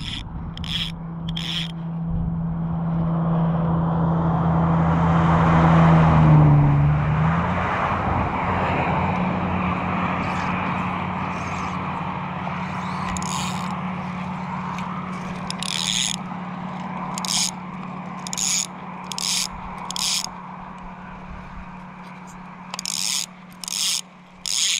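A motor's steady drone swells to its loudest about six seconds in, then slowly fades. In the second half a fly reel's click drag rasps in short runs, several times, as line is pulled off the reel.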